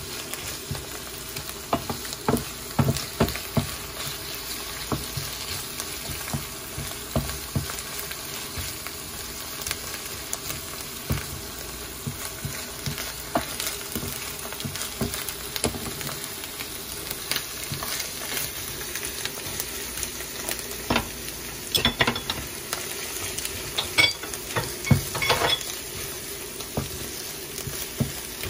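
Spinach and garlic frying in olive oil in a nonstick pan, sizzling steadily. A wooden spoon stirs and scrapes through it, with frequent knocks of the spoon against the pan.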